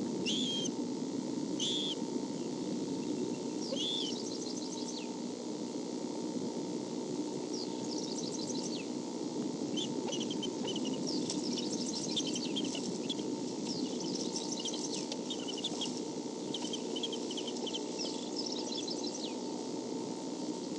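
Bald eagles calling at the nest: three short, high, arched calls in the first four seconds, then from about eight seconds on, repeated rapid runs of high chittering notes. A steady low background hum runs underneath.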